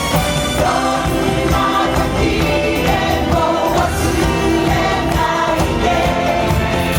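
Music with a group of voices singing, playing loudly and steadily.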